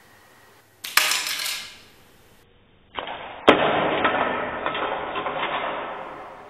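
Homemade rubber-band-powered Lego gun firing: a sharp snap about a second in. About three seconds in comes a second sharp click, followed by a long, fading rush of noise as the Lego projectile skids across the tile floor.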